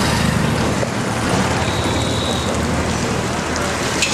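Steady engine and road noise of a moving motor vehicle, a low rumble under an even hiss.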